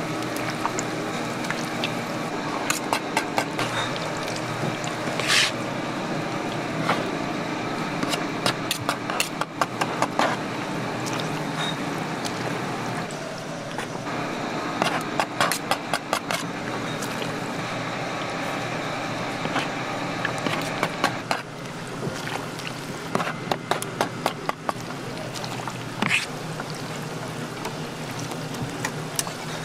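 Fish cakes deep-frying in a stainless-steel fryer: the oil sizzles steadily, with many short crackles and metal clicks from tongs working the pieces, in clusters throughout.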